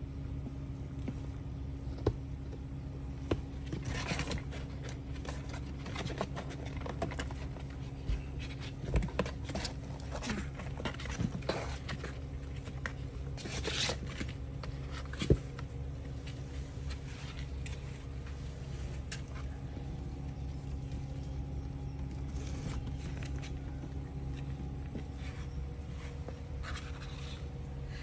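Scattered scrapes, rustles and light taps of kittens' paws on cardboard boxes and paving, busiest in the first half, over a steady low hum; one sharp knock about fifteen seconds in.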